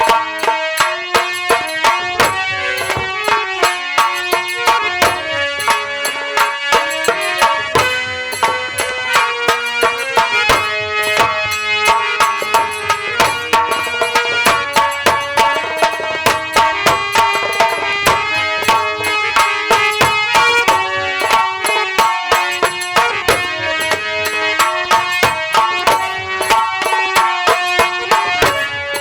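Live nautanki folk-theatre accompaniment: fast, steady hand-drum strokes driving a melody played on a pitched instrument, with no singing.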